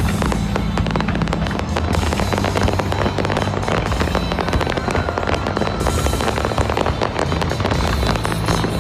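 Fireworks display going off densely, with rapid crackling and popping bangs one after another over music with a steady bass line.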